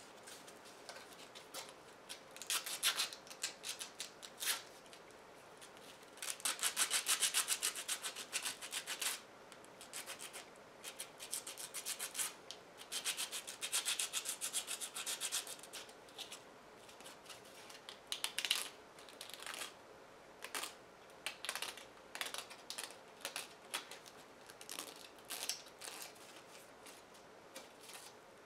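Hand-sanding a small 3D-printed plastic ring with sandpaper: quick scratchy back-and-forth strokes in bursts of a few seconds, with short pauses between. It is smoothing away the ridges of the printer's layer lines.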